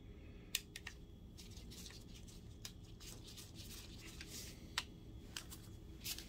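Faint small clicks and scratchy rustles of a screwdriver turning out the screw of a projector's metal lens-adjuster knob and the parts being handled, with sharp clicks about half a second in and a few more near the end.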